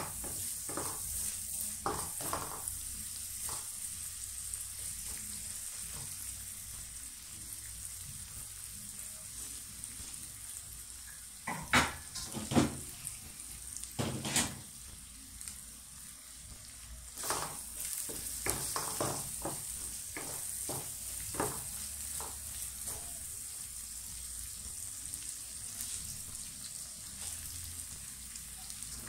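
Sliced onions sizzling in a wok, with a wooden spatula stirring and knocking against the pan now and then. The loudest knocks come about twelve and fourteen seconds in, and a quicker run of them comes a few seconds later.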